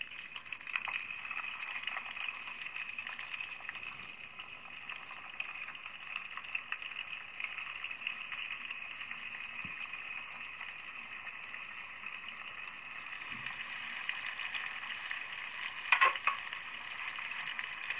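Pomegranate peel, flowers and seeds sizzling as they fry in hot coconut oil in an iron kadai, a steady hissing crackle. A brief louder flare of sizzling comes near the end as more pieces go into the oil.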